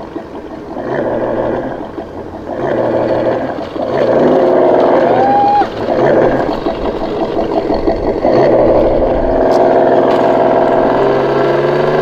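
Tamiya Toyota Tundra High Lift RC truck's electric motor and gearbox whining in stop-start stretches as the throttle is worked. It grows louder about four seconds in, then runs steadily.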